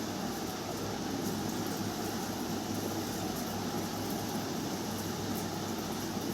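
Steady background noise with a low hum and a few faint ticks.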